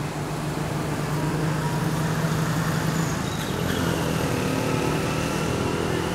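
A motor engine running at a steady hum. A thin high tone joins a little past halfway.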